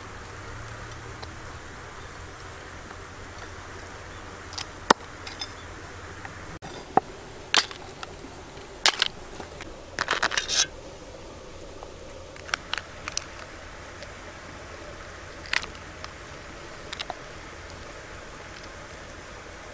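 Sharp cracks and clicks of raw blue crab shells being pried apart by hand, scattered irregularly, with a quick clatter of crabs against a steel tray about ten seconds in.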